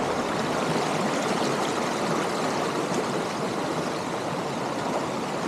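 Shallow stream rushing steadily over rock ledges and small cascades.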